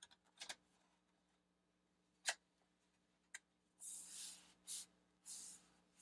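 Aluminium bottom case of a MacBook Pro being pressed back into place by hand: a few faint clicks, one sharper click about two seconds in, then three soft brushing sounds of hands sliding over the metal case.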